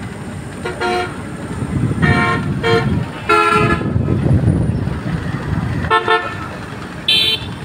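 Vehicle horns honking in about six short blasts, each several tones sounding together, the last one near the end higher-pitched, over a steady low rumble of engines and road traffic.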